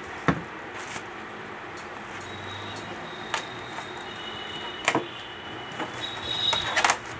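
Handling noise from a cast-iron sewing machine head being moved and set down inside its clear plastic bag. There are a few sharp knocks and a busier stretch of crinkling plastic and clatter near the end.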